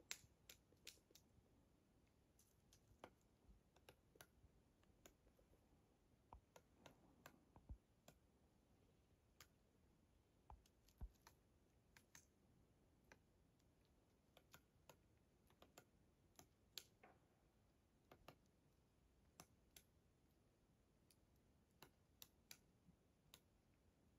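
Eurasian three-toed woodpecker pecking at tree bark while feeding: faint, irregular sharp taps, one or two a second, with a few short quick runs.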